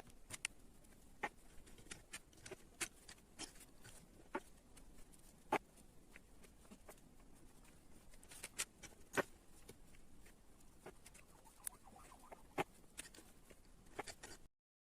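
Scattered light clicks and taps at uneven intervals over a faint hiss, the loudest a few sharp ticks around the middle; the sound cuts off abruptly near the end.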